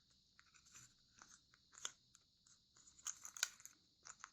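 Faint crinkles and soft clicks of a sheet of origami paper being folded and creased by hand, a few louder ones about three seconds in.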